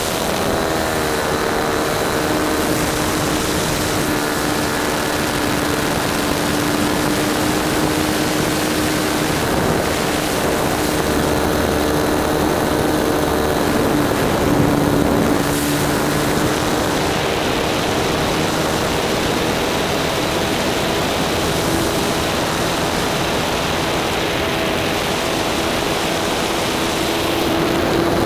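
A 1.20-size nitro glow engine on a radio-controlled model plane running steadily in flight, heard close up from a camera mounted beside the engine. Its pitch dips slightly about halfway through and rises a little again later.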